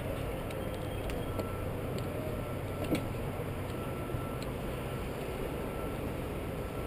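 Steady wind rumble and noise on a helmet-mounted GoPro high on an abseil rope, with scattered small clicks and one sharper click about three seconds in.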